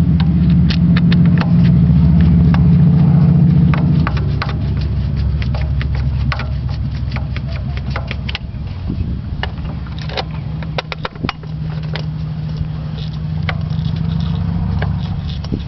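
A steady low engine hum, louder for the first four seconds, with scattered sharp metallic clicks and small knocks of hand tools tightening screws.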